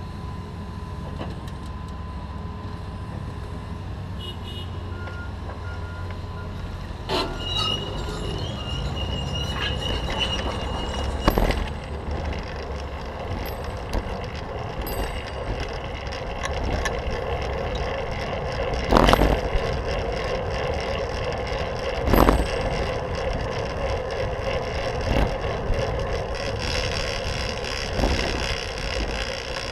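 City traffic heard from a camera on a bicycle: a steady traffic hum while stopped, then louder wind and road noise once the bike is moving, with a few sharp knocks.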